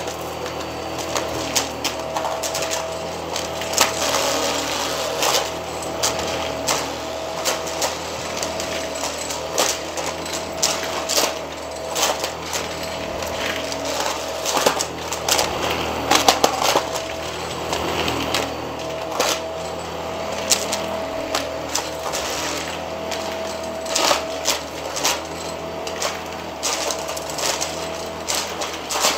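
Cordless upright vacuum running over thick carpet with a steady hum and a tone that keeps breaking up, while coins it sucks up clink and rattle through it in many sharp clicks.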